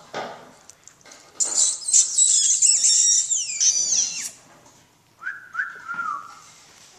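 Four-week-old teddy bear puppies squealing shrilly for about three seconds, several pitches falling together, then a few short whines that drop in pitch.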